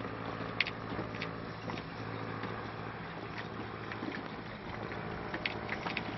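Boat engine running steadily at a low hum, with water and wind noise, and a few sharp clicks about half a second in and again near the end.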